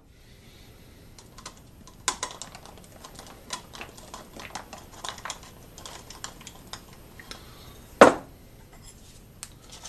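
Rabbit manure pellets clicking and rattling as they are poured from a glass jar through a funnel cut from a plastic bottle into a plastic bottle, with one louder knock about eight seconds in.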